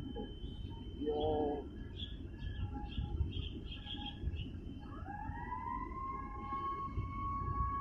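Steady wind and water noise by the harbour, with a short low pitched honk about a second in and small birds chirping over the next few seconds. About five seconds in, a tone rises in pitch like a siren winding up and then holds steady.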